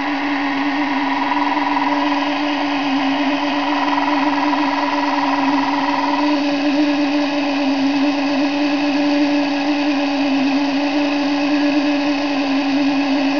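Small electric drive motor of an H0-scale model Twister fairground ride, whirring steadily with a constant hum as the ride spins. A higher whine in the sound stops about six seconds in.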